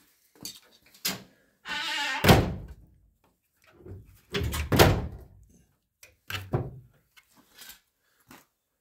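A few dull thumps with some rubbing, the loudest about two seconds in and another about five seconds in, then a lighter one about six and a half seconds in.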